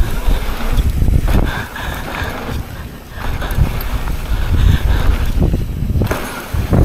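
Wind buffeting an action camera's microphone on a moving bicycle: a rough, uneven low rumble that swells and dips.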